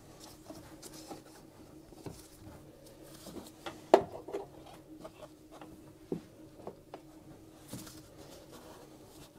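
Gloved hands handling a plastic coolant tank and its rubber hoses while working the hoses off: light rubbing with scattered small plastic clicks and knocks, the sharpest about four seconds in.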